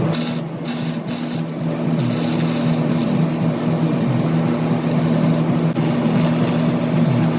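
Scag zero-turn mower's engine running steadily, its pitch sagging briefly a few times as if under changing load.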